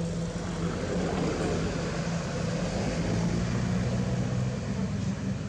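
Steady low engine hum with a rushing noise over it, a little louder in the middle: a motor running.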